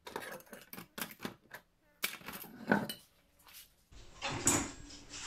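Handling noise from a phone being picked up and carried: a run of small clicks and taps on the microphone, with louder knocks near the middle and again about four and a half seconds in.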